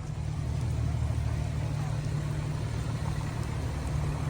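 Car driving slowly, heard from inside: a steady low engine and road rumble.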